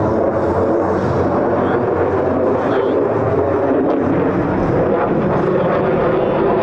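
F-35A Lightning II's Pratt & Whitney F135 jet engine, a loud steady roar of jet noise with no letup.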